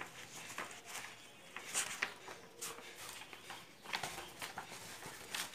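Paper pages of a paperback textbook being turned and handled: soft, irregular rustles and light flaps.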